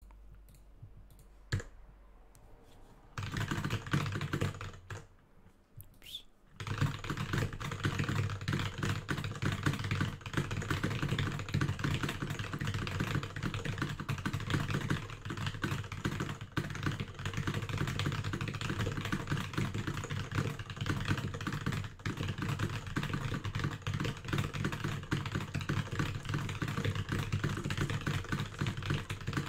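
Computer keyboard typed at speed-test pace: a dense, unbroken clatter of keystrokes. After a single click about a second and a half in, the typing starts at about three seconds, pauses briefly around five seconds, and runs without a break from about six and a half seconds.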